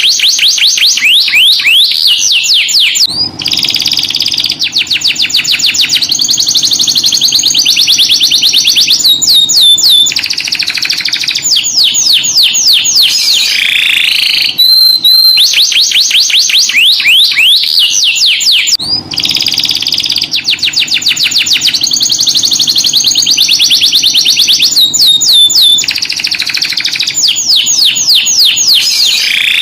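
Domestic canary singing a long song of fast rolling trills and quick sweeping chirps, switching to a new trill every few seconds. The same song sequence plays twice in a row.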